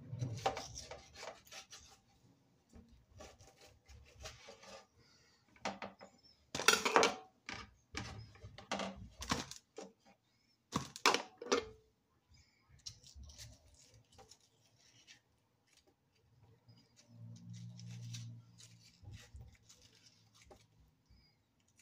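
Serrated knife cutting around and scraping out the core of a beefsteak tomato on a plate: irregular scrapes, with clicks of the blade against the plate. The loudest strokes come about seven and eleven seconds in.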